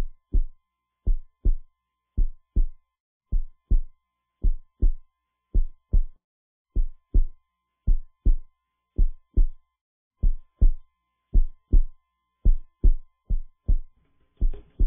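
Heartbeat sound effect: paired low thumps (lub-dub) about once a second, quickening near the end, over a faint high steady tone. Music starts to come in at the very end.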